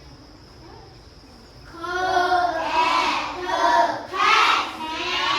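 A class of young children chanting together in a sing-song, starting about two seconds in after a short pause.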